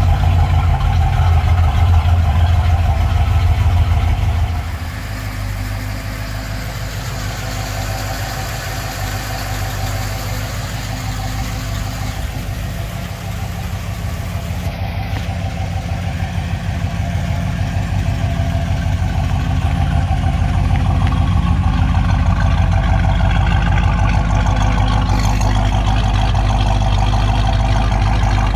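1970 Oldsmobile Rallye 350's 350 cubic-inch V8 idling steadily through its dual exhaust. It gets a little softer about four seconds in, then slowly louder again toward the end.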